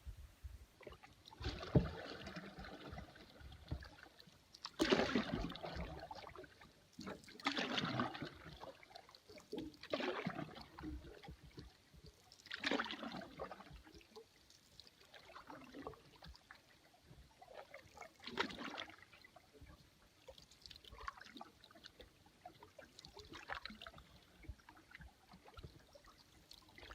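Canoe paddle strokes pulling through lake water, a swish and splash about every two and a half to three seconds.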